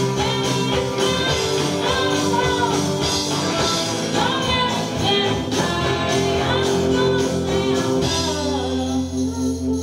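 Live rock band playing: a lead vocal sung over guitars and bass. The singing stops about eight seconds in while the band's chord rings on.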